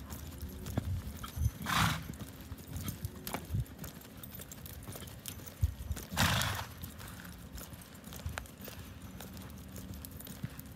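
A buckskin Quarter Horse loping on a sand arena: soft, uneven hoofbeats thudding in the sand. Two short, louder rushing noises come about four and a half seconds apart.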